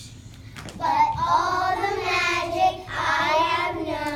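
Young children singing together, starting about a second in after a short quiet moment.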